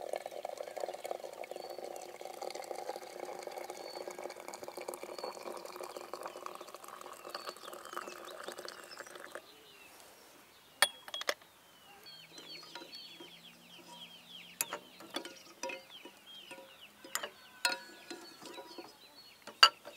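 A steady rushing sound, rising slowly in pitch, stops suddenly about halfway. Then chickens cluck, with many short chirps and several sharp clicks.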